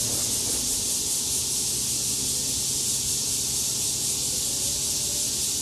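Steady high-pitched hiss with a faint low hum underneath, even throughout, with no distinct cutting or sliding strokes standing out.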